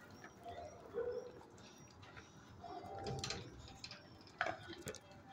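Shelter dogs whining faintly in a few short, high notes, with a sharp click about four and a half seconds in.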